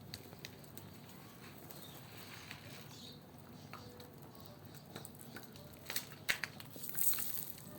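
Pigeons moving about: scattered light taps and scuffs, with a short cluster of louder clicks and a brief rustle near the end.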